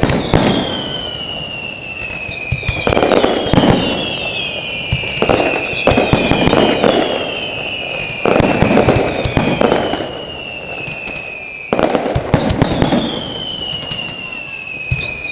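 Fireworks display: shells bursting about every three seconds, each bang followed by crackling and a high whistle that slides slowly down in pitch.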